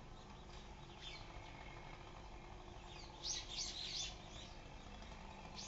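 Songbird calls: a quick run of high chirps about three seconds in, with a few fainter calls before and after, over a faint steady low background noise.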